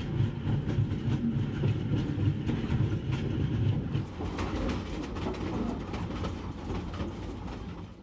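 Narrow-gauge steam train on the move, its wheels clattering over the rail joints and the carriages rattling over a steady low rumble, fading near the end.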